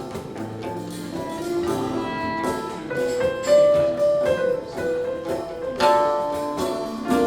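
Live acoustic world-music ensemble playing: plucked string notes under a held melody line, with stronger new notes coming in about halfway through and again near the end.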